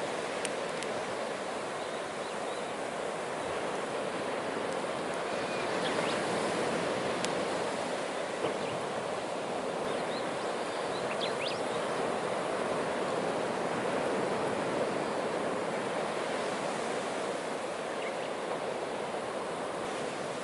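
Driftwood bonfire crackling with a few sharp pops over a steady rush of surf on the shore.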